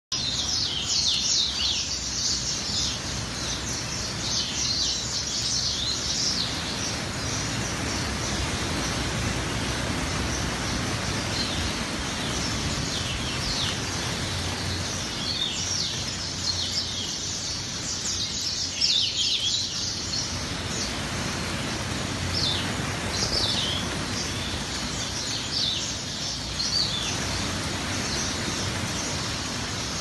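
A large flock of small caged birds chirping and singing at once: a dense, unbroken chorus of short, high, downward-sweeping chirps over a steady low background rumble.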